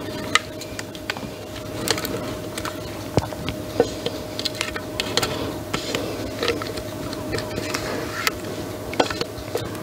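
Spatula scraping thick cream out of a stainless-steel Thermomix mixing bowl, with irregular clicks and taps of the spatula against the metal, over a faint steady hum.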